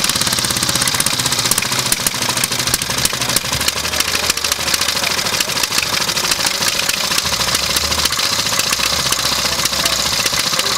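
1910 replica Harley-Davidson single-cylinder engine running on its stand, a rapid, even string of firing beats.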